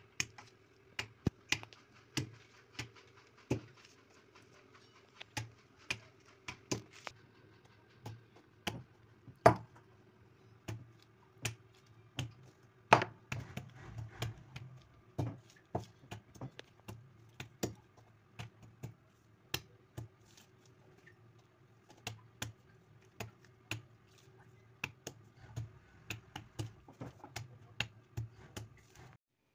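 Green olives being cracked one at a time with blows of a brass mortar's pestle on a plastic sheet over a hard floor: sharp, irregular knocks about one or two a second, a few of them much louder than the rest.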